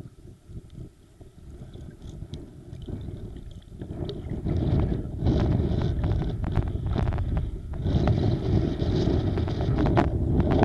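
Wind buffeting the microphone over choppy sea water, with water sloshing and splashing around the boat that gets louder about four seconds in, and scattered small clicks and knocks.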